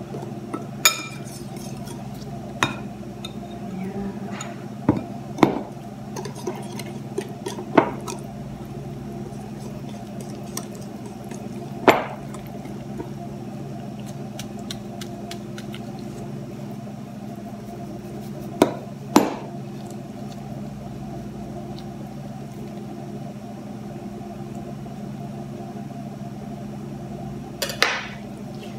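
Wire whisk knocking against a glass mixing bowl now and then while stirring a flour batter, sharp clinks a few seconds apart, with a pair close together about two-thirds of the way through. A steady low hum runs underneath.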